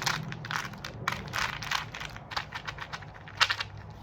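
Packaging being handled and crinkled, an irregular run of crackles and clicks with a sharper snap about three and a half seconds in.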